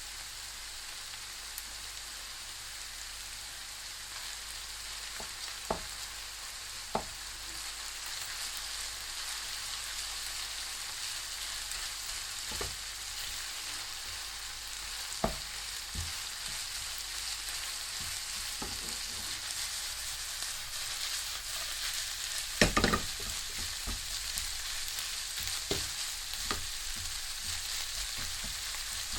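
Beef frying in a pan with a steady sizzle that grows slightly louder, and now and then a knock of a utensil stirring against the pan. The loudest few knocks come about three quarters of the way through.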